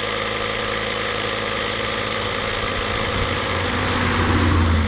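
An engine running steadily at idle, with a low rumble that swells for a second or so near the end.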